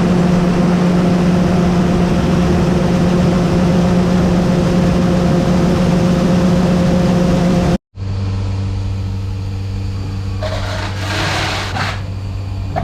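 Steady drone of a farm machine's engine, then after a sudden cut about eight seconds in, a different, lower steady machine hum with a brief hissing rush near the end.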